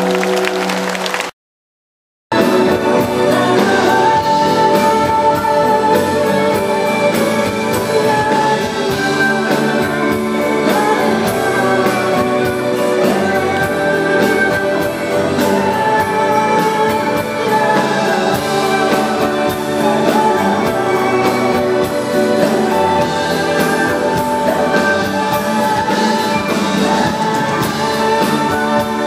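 Live folk-pop song: a man singing to strummed acoustic guitar with a second guitar backing him. A second of dead silence about a second in marks a cut between clips, after which the song picks up again.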